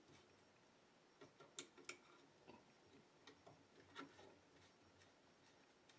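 Faint, irregular clicks of a hand screwdriver turning screws into the housing of an electronic brake control module, a few close together then one more near the middle.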